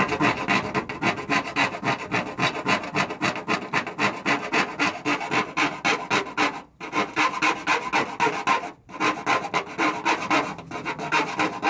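Hand file scraping back and forth along the cut edge of a sheet-metal truck fender, deburring a freshly cut hole in quick, steady strokes, about four to five a second, with two short pauses.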